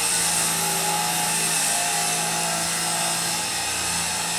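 A motor-driven machine running steadily, a continuous whine with a hum and a hiss.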